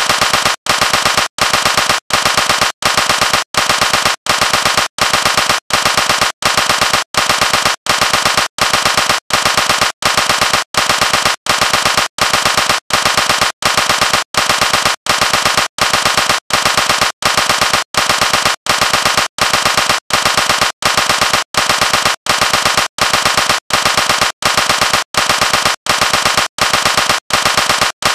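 Automatic gunfire in short bursts of rapid shots, each burst about half a second long, repeating at a strictly even pace of about three bursts every two seconds.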